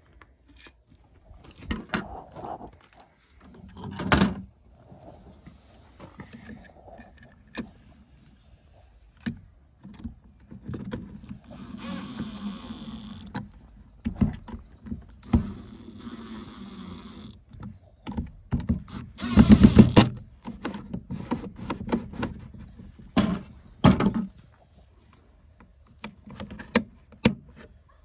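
Cordless drill-driver running in three short bursts of one to two seconds each, with a thin high whine, driving in the screws of a caravan door handle's chrome surround; the last burst, about two-thirds of the way in, is the loudest. Clicks and knocks of the plastic and metal lock parts being handled come before and between the bursts.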